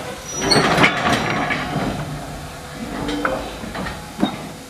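Goods wagons of a steam-hauled train running, heard from aboard. A louder spell of noise comes about half a second in and lasts about a second and a half, and sharp clanks follow near the end.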